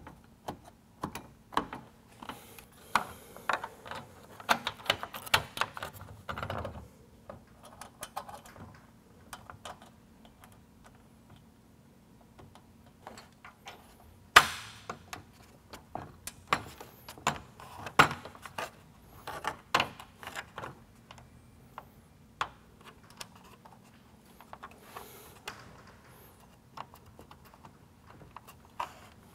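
Small metal mounting brackets and nuts clicking and rattling as they are handled and threaded on finger-tight against a plastic truck grille shell, with one sharper knock about halfway through.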